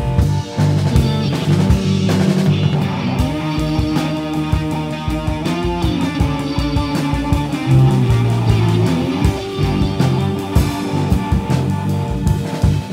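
Instrumental rock jam: guitar playing held notes that bend up and down, over a drum kit and strong low notes.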